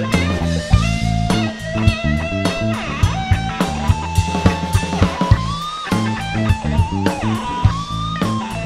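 Live blues-rock band playing an instrumental break: an electric guitar solo with long held and bent notes over bass and a drum kit keeping a steady beat.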